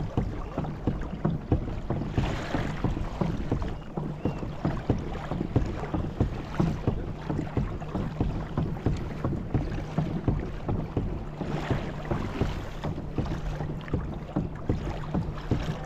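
Water lapping and splashing against a kayak hull, with a dense run of small knocks and a low steady hum underneath. A louder hissing swell comes about 2 seconds in and again about 12 seconds in.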